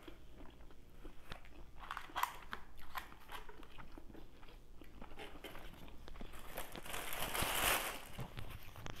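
Close-miked chewing and crunching of salad with small handling clicks, then a plastic bag rustling for about two seconds near the end, the loudest sound here.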